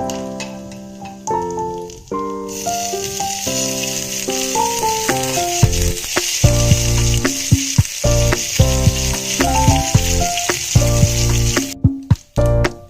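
Food frying in hot oil in a pan, a steady sizzle that starts about two seconds in and cuts off suddenly near the end. Background piano music plays throughout.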